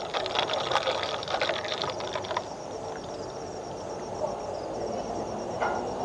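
A quick run of light clicks and clatter for about the first two seconds, over steady background noise with a high, rapidly pulsing insect chirp.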